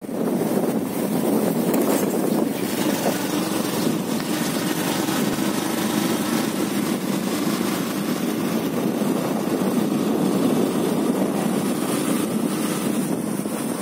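Motorcycle running steadily at cruising speed, heard from the pillion seat.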